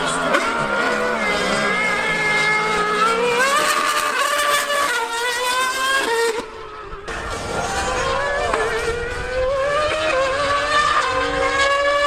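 Mercedes Formula One car and superbike at full acceleration in a drag race, their engines revving up through the gears: the pitch climbs and falls back at each gear change. The sound dips briefly about halfway through, then climbs again through more gear changes.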